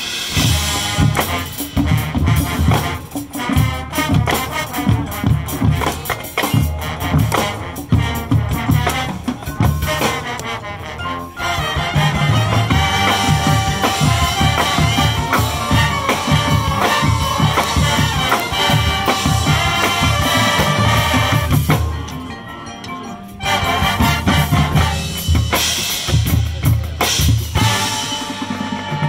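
High school marching band playing its field show: brass and winds over drumline and front-ensemble percussion, with snare and bass drum hits. The full band comes in sharply at the start, grows louder about twelve seconds in, drops briefly around two-thirds of the way through, then comes back in at full strength.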